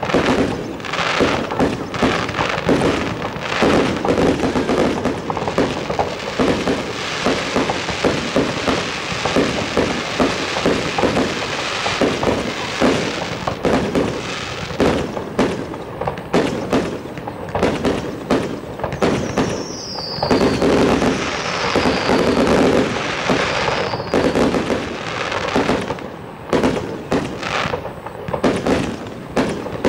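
Fireworks show: a rapid, dense run of shell bursts and crackling. About two-thirds of the way in, three short falling whistles sound over the bursts.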